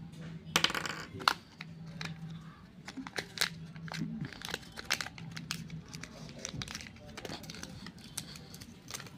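Plastic Kinder Joy egg halves and a folded paper sticker sheet being handled: crinkling, rustling and sharp plastic clicks, loudest in a burst in the first second and a half.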